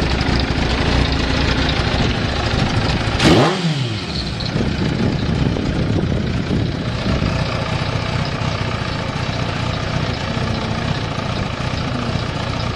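Kawasaki ZZ-R1200 inline-four engine idling steadily, with one quick throttle blip about three seconds in: the revs shoot up and fall straight back to idle. No knocks or other unusual noises in the idle.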